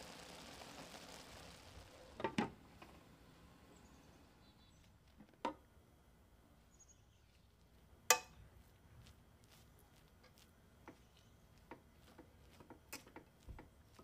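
Metal spoon clinking and scraping against a stainless steel pan while cooked basmati rice is stirred and fluffed: a few sharp clinks, the loudest about eight seconds in, then softer ticks and scrapes near the end. A faint hiss fades out over the first couple of seconds.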